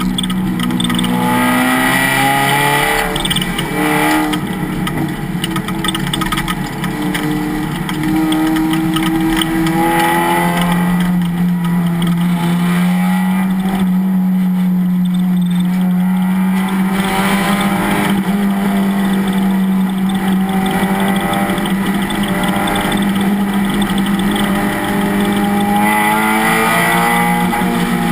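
Race car engine running hard, its pitch climbing and stepping through gear changes over the first several seconds. It then holds one steady pitch for a long stretch and changes pitch near the end.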